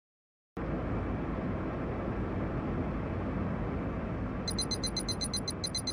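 Outro sound effect: a steady rushing noise that starts suddenly about half a second in, joined about four and a half seconds in by a fast, high-pitched ticking, around ten ticks a second.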